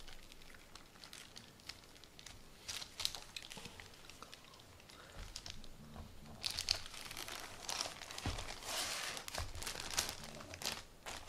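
Plastic cling wrap crinkling and rustling as a plastic-wrapped bamboo sushi mat and a sheet of nori with rice are handled and flipped over. There are scattered light ticks at first, then denser, louder crinkling in the second half.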